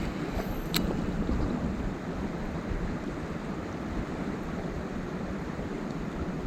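Mountain stream water rushing steadily over rocks, with one short sharp click about a second in.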